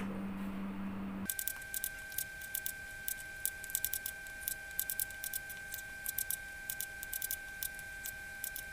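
Kitchen knife slicing green capsicum on a plastic cutting board: quick, irregular clicks of the blade meeting the board, starting about a second in.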